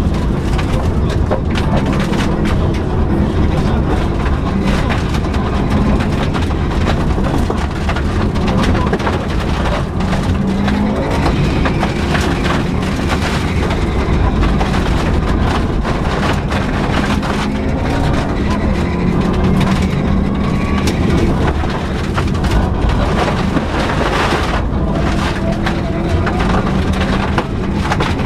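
Subaru Impreza rally car's flat-four engine run hard on a special stage, its pitch climbing and dropping over and over with the gear changes, under a constant rattle and many short knocks.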